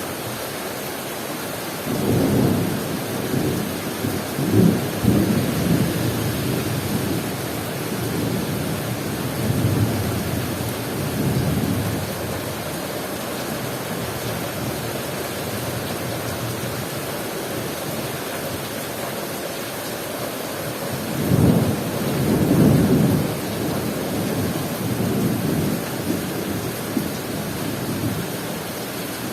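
Heavy rain falling steadily, with two long rolls of thunder: one rumbles in a couple of seconds in and rolls on for about ten seconds, the other comes past the middle and rolls for several seconds more.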